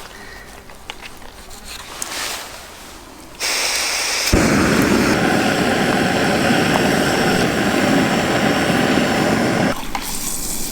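Battered food sizzling loudly in hot frying oil, starting suddenly about three and a half seconds in and stopping abruptly near the end.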